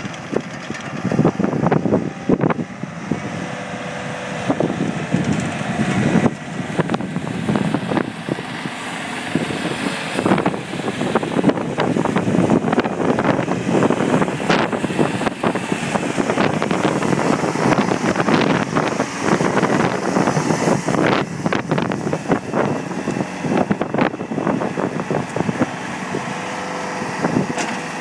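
Bobcat T-190 tracked skid steer loader running on its Kubota diesel engine, a steady engine sound with frequent short clanks and rattles throughout.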